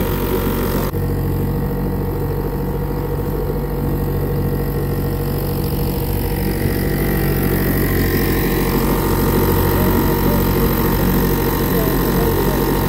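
1957–58 British Seagull single-cylinder two-stroke outboard motor running steadily under way at a low, even chug, with wind and water noise behind it. It is running well, with good spark now.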